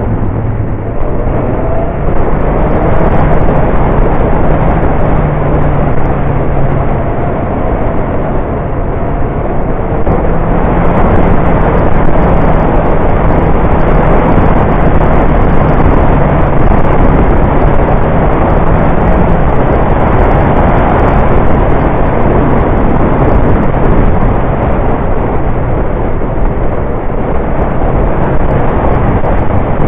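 Motorcycle engine running through a mountain-pass descent, its pitch shifting in steps a few times with throttle and gear changes, under a loud steady rush of wind and road noise on the microphone.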